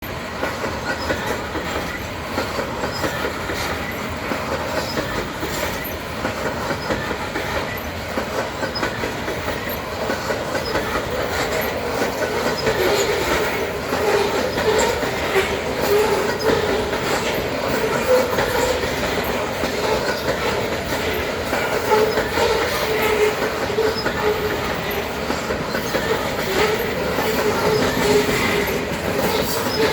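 Freight train cars rolling past, steady wheel-on-rail rumble with the clickety-clack of wheels over rail joints. About twelve seconds in, a steady mid-pitched whine joins it and holds.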